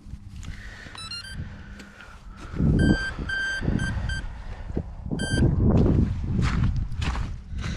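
Electronic start-up beeps from an RC helicopter's electronics as the flight batteries are connected: a short rising tone about a second in, then a run of high beeps and one more a little later. Loud low rumbling noise runs under them.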